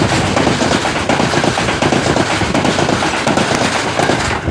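Passenger coaches of a passing train rushing by close alongside, heard from an open train window: a loud, dense rattling clatter of wheels on rail joints mixed with rushing air, easing slightly near the end as the last coach goes by.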